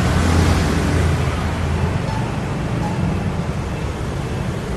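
Steady street traffic noise: a low rumble under a hiss.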